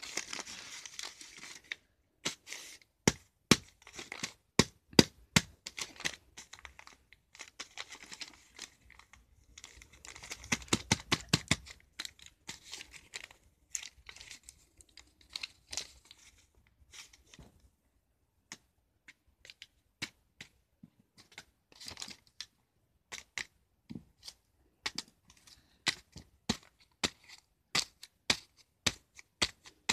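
Lined notebook paper being torn and crumpled by hand in several bursts, with many irregular sharp clicks and taps in between.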